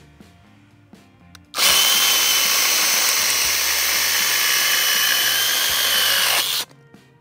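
Litheli U20 mini cordless chainsaw with a brushless motor cutting into a wooden board. It starts about one and a half seconds in, runs steadily with a high whine for about five seconds, then stops abruptly.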